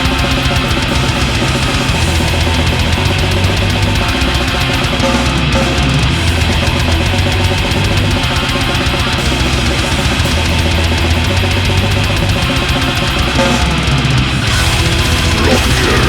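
Instrumental passage of a metal song, without vocals: distorted electric guitars, bass guitar and fast drumming on a drum kit.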